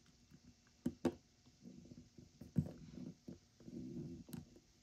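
Case-back wrench tightening the screw-down case back of a Fossil FS-4487 watch by hand: a few small sharp clicks and short scraping, rubbing sounds as the tool's pins grip and turn the back.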